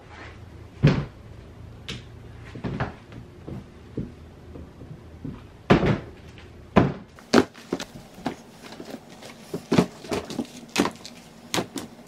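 Shoes being dropped and set into a clear plastic storage tote: a string of irregular knocks and clatters against the plastic, coming faster in the second half.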